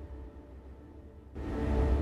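Contemporary music of held, sustained tones over a low rumble, dipping and then swelling louder about a second and a half in.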